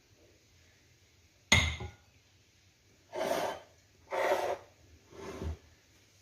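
An egg cracked with one sharp knock against a bowl, followed by three short rasping sounds about a second apart.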